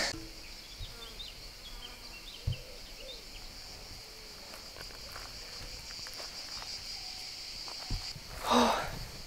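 Insects buzzing in a steady high-pitched drone throughout. There is a soft thump about two and a half seconds in and a brief loud rush of noise near the end.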